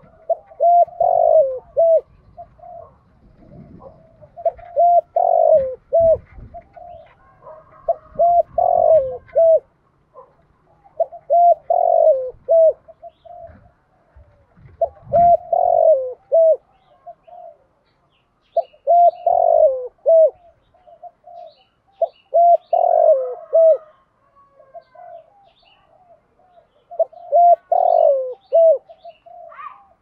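Caged decoy spotted dove cooing its song over and over: a phrase of several low coos about every three to four seconds, eight phrases in all. Faint high chirps of small birds are in the background in the second half.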